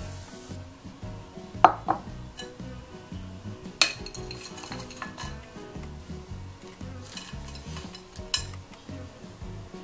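Brief sizzle of anchovies and walnuts in a frying pan that stops within the first second. Then a spatula knocks against a ceramic plate and scrapes through the dry, crunchy stir-fry: two sharp clinks about two seconds in, another near four seconds and one near eight. Soft background music with a steady beat runs underneath.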